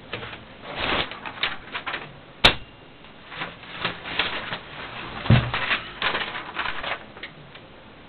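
1951 Underwood No. 6 manual typewriter being worked by hand at its carriage and platen: irregular mechanical clicks and rattles, with one sharp click about two and a half seconds in and a heavier knock a few seconds later.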